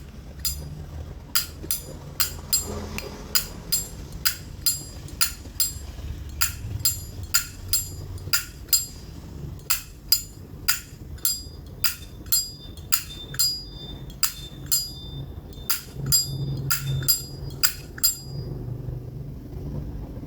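Brass Zippo lighter's hinged lid being flicked open and snapped shut over and over, metallic clicks with a short bright ring, about two a second, stopping shortly before the end.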